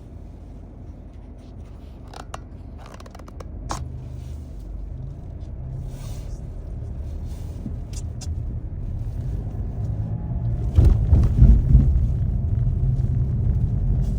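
Car driving on a snowy road, heard from inside the cabin: a low engine and tyre rumble that grows steadily louder, with scattered clicks and knocks and a rougher, louder stretch about eleven seconds in.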